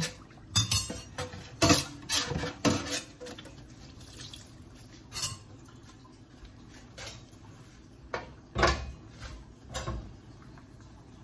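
Metal cookware and utensils clinking and clattering on a gas stove: several sharp knocks in the first three seconds, one about five seconds in, and two more near the end.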